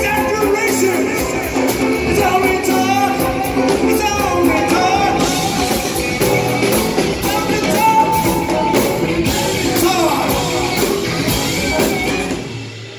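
A live rock band plays loudly: singing over electric guitar, bass guitar and a drum kit. The music stops sharply near the end.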